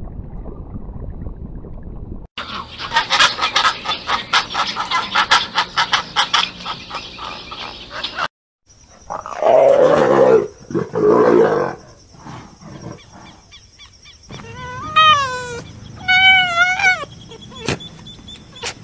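Leopard growling: two loud, rough growls of about a second each. Before them comes a stretch of dense crackling and clicking, and after them a few short, high whining calls that rise and fall.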